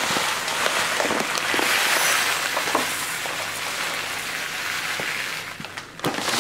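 Dry semi-wholegrain long-grain rice pouring from a paper sack into a glass jar, a steady hiss of grains with some spilling onto the worktop. The pour dips near the end, then starts again.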